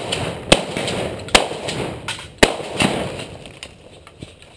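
Three shotgun shots fired in quick succession, roughly a second apart, each loud crack trailing off in a short rolling echo.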